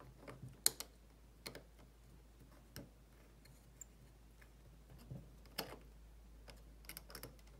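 Faint, irregular clicks and light taps of small M3 steel screws being set and turned into a 3D-printed plastic gear piece on a stepper motor, the sharpest click under a second in.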